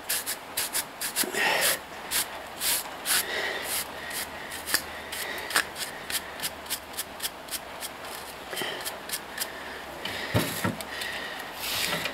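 Rapid, irregular scraping and scrubbing strokes of a hand tool against a clogged car heater core as the dirt is cleaned out of it. A couple of heavier knocks come about ten seconds in.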